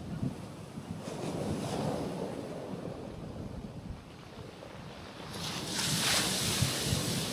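Small waves washing onto a rocky shoreline, two surges of surf rushing in, the second about five and a half seconds in and the louder, with some wind on the microphone.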